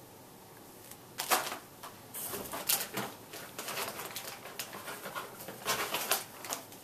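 Rummaging in a cardboard box of plastic-packaged fishing tackle: a single click, then a run of rustling and crinkling with scattered small clicks, starting about two seconds in.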